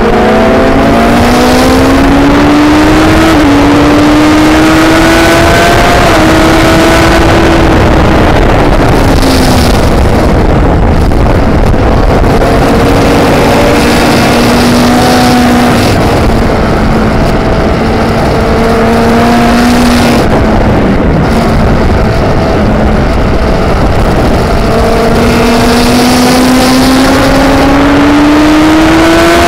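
Motorcycle engine running hard, heard onboard under heavy wind rush on the microphone. The engine pitch climbs and drops with gear changes in the first few seconds, holds fairly steady through the middle, dips about twenty seconds in, then climbs again near the end.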